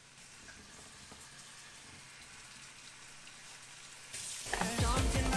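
Dumplings frying in a little oil in a frying pan, a faint, even sizzle. About four seconds in, pop music with singing starts and drowns it out.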